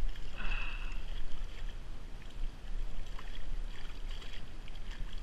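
Shallow stream water splashing and sloshing as a trout is netted in a wooden landing net, with brief splashes and ticks scattered through.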